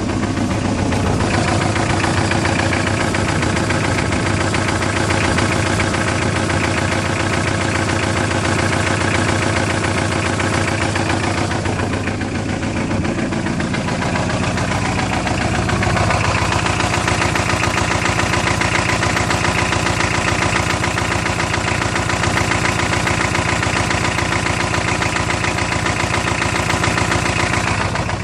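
Engine running at idle with a knock whose cause is unknown to the owner; the engine's note shifts about halfway through.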